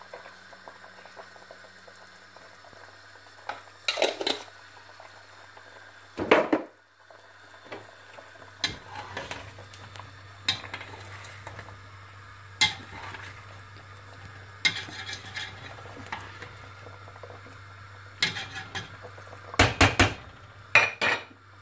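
Spoons clinking, knocking and scraping against the sides of a stainless steel cooking pot as a wet rice-and-chicken mixture is stirred, in separate strokes every second or two and a quick cluster of knocks near the end. A low steady hum sits underneath.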